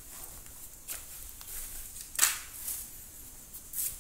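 A few short scrapes and rustles of a hand brushing over a TV's metal backlight panel and LED strips, the loudest about two seconds in and another near the end.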